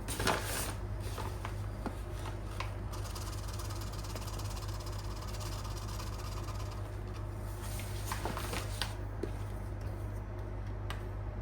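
Flour being sifted, a soft steady rustling hiss with a few light taps, over a constant low room hum.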